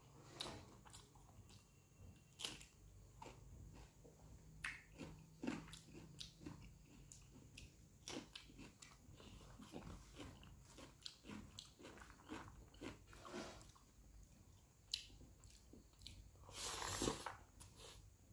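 Close-up eating sounds: chewing and biting, with soft crunches and small wet mouth clicks scattered throughout, and one louder, longer noisy sound near the end.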